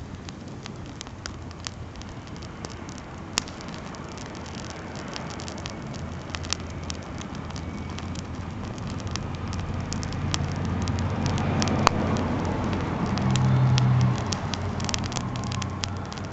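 Wood campfire crackling with scattered sharp pops. Underneath, a low engine hum grows louder from about six seconds in, peaks near the end and eases off, like a motor vehicle passing.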